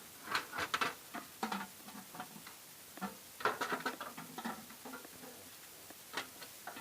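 Irregular light ticking and pattering from a prototype bitterleaf washing machine's rinsing chamber as it rinses leaves with running water, in scattered clusters of short clicks.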